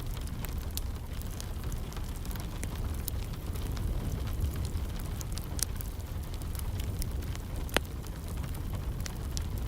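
Wood fire crackling in a fireplace: scattered pops and snaps over a steady low rumble, with one sharper crack near the end.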